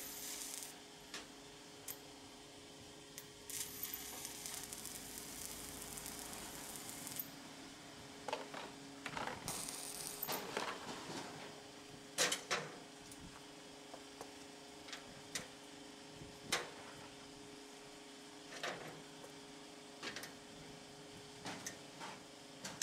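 Stick-electrode arc welding tack welds on steel: short bursts of crackling arc sizzle, the longest about four seconds. After that come sharp metal clanks and clicks as locking C-clamps are moved and reset on the steel strip, with a steady hum underneath.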